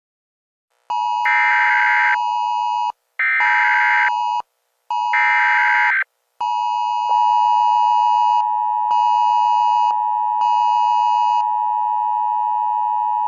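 Emergency Alert System-style alert tones: three short screeching data bursts over a steady tone, then a long steady attention tone starting about six seconds in.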